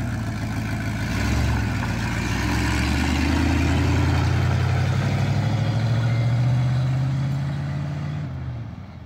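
1976 Ford F-250's 390 FE V8 pulling away from a stop and accelerating, the engine note swelling about a second in. It runs strong for several seconds, then fades as the truck drives away near the end.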